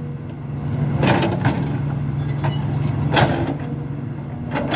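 Hidromek 300LC hydraulic excavator's diesel engine running steadily, with a few scattered metallic knocks and clanks over it.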